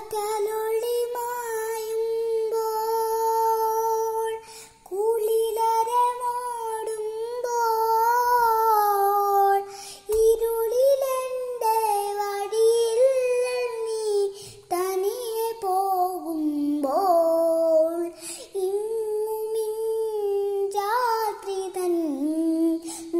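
A young girl singing a Malayalam song solo in long held notes, breaking off briefly between phrases three times.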